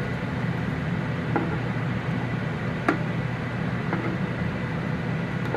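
Steady hum of a kitchen appliance's fan running, with three faint light taps.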